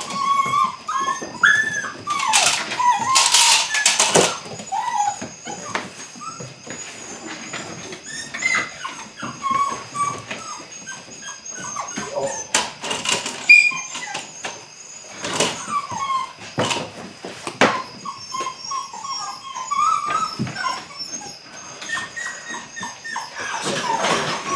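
Belgian Malinois puppy making short high-pitched whines and yips while tugging and biting at a rag, with scuffling and sharp knocks from the play on the floor.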